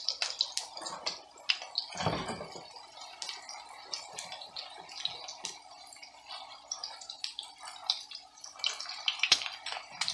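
Salmon patties frying in hot oil in a skillet: a steady sizzle with many irregular crackles and pops. A dull thump about two seconds in, and a sharp click near the end as tongs grab a patty.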